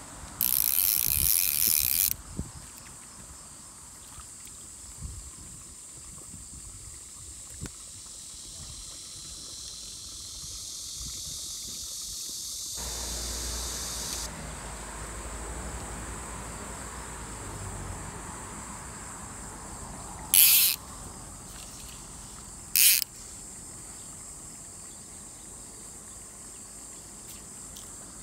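Insects shrilling outdoors: a loud, high buzz starting just after the beginning and stopping sharply under two seconds later, then a high drone that swells and cuts off suddenly about halfway through, and two short, loud buzzes a couple of seconds apart later on, all over a constant thin high whine.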